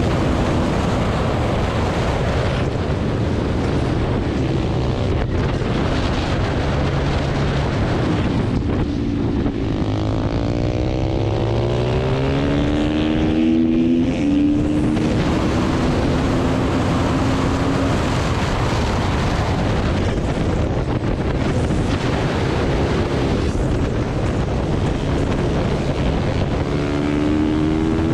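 Husqvarna supermoto's single-cylinder engine at racing speed, revs climbing and dropping through gear changes and corners, under heavy wind rush on the microphone.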